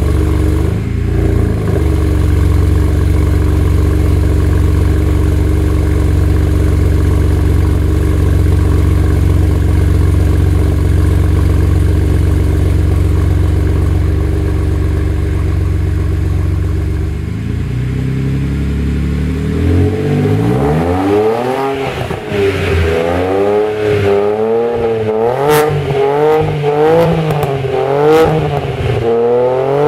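BMW E92 335i's turbocharged 3.0-litre straight-six running through an Eisenmann Race exhaust: it idles steadily, with one short blip about a second in. About two-thirds of the way through it is revved in a quick series of blips, rising and falling, with sharp pops from the exhaust.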